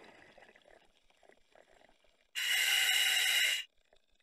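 Diver breathing on scuba in a full face mask: one steady hiss of air drawn through the demand regulator, lasting just over a second, about halfway through.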